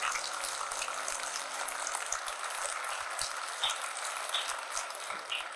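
Audience applauding, a dense patter of many hands clapping that thins out near the end, with the last held notes of music dying away in the first two seconds.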